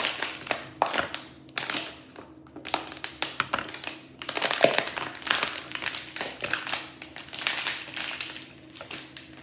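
Plastic Lego pieces being handled and rummaged through: irregular clicks, rattling and rustling.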